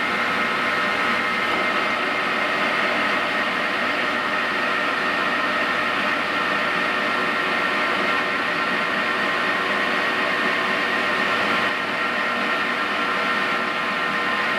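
Victor 1640 engine lathe running under power: a steady mechanical whir with a high, steady whine.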